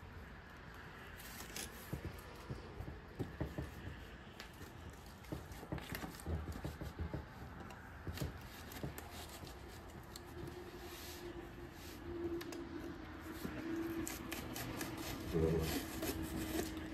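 Cardboard being handled and fitted against a wooden chair frame: scattered rustles, scrapes and light knocks. A faint steady hum comes in about ten seconds in.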